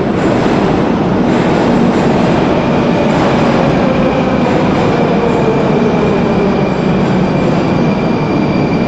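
Moscow metro train running through the station: a loud, steady rumble with a motor whine that slowly falls in pitch about halfway through, and a steady high tone in the second half.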